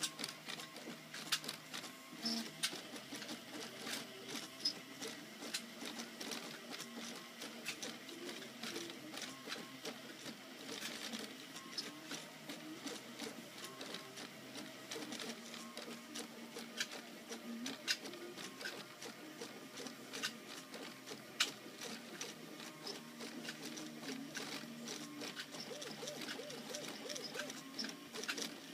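Homemade RepRap Mendel 3D printer printing PLA: its stepper motors whine in short tones that change pitch with each move of the printhead, with sharp ticks scattered throughout.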